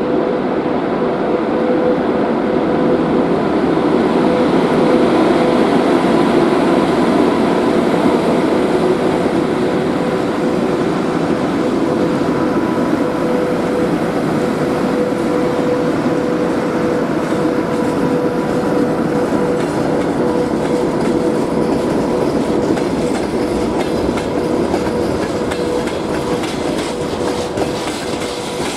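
Freight train of hopper wagons behind a VL80K electric locomotive rolling past close by: a steady loud rumble and clatter of wheels on the rails, with a steady tone running through it.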